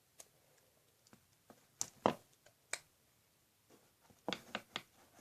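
Handling noise from a funnel and a slime-filled balloon being worked: scattered light clicks and taps, a cluster about two seconds in and another burst a little after four seconds.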